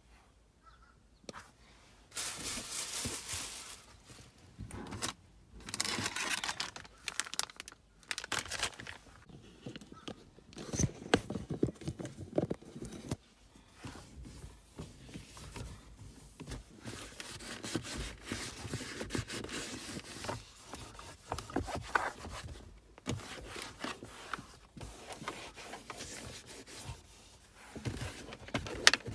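A cleaning cloth rubbing and scrubbing over the plastic center console and gear shifter of a car, with crinkling and scraping in uneven strokes from about two seconds in.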